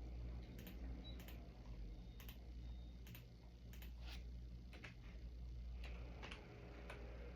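Faint, scattered light clicks at irregular spacing, roughly one a second, over a steady low hum.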